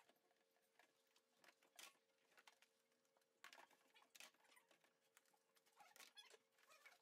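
Very faint hand dishwashing: scattered light knocks and scrapes of plastic plates and lids in a stainless steel sink, a little louder about two seconds in, around three and a half to four seconds, and near six seconds, over a faint steady hum.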